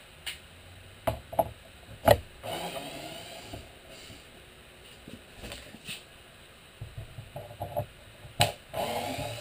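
Power drill-driver backing out wood screws in short runs, with clicks and knocks from the driver and screws being handled. The loudest knock comes about two seconds in, and a short rising whine comes near the end.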